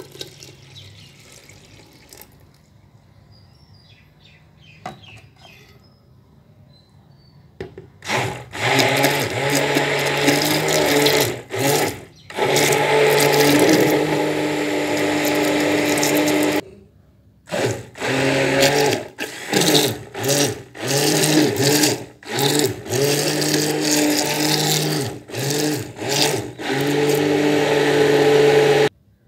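Electric hand blender running in a steel pot of yogurt and milk, mixing lassi. It starts about eight seconds in, runs in long stretches, then is switched on and off in short pulses, and stops shortly before the end.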